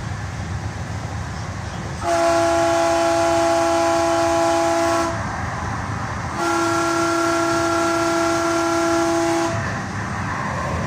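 Light rail train's horn sounding two long steady blasts of about three seconds each, heard from inside the moving car over the low rumble of the train on the track.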